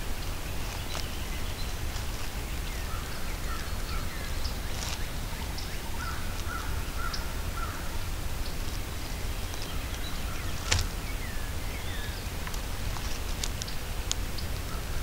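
Spring woodland ambience: wild birds calling with short sweeping notes and a brief run of repeated notes, over a steady low rumble. A single sharp click stands out about ten seconds in, with a few faint ticks near the end.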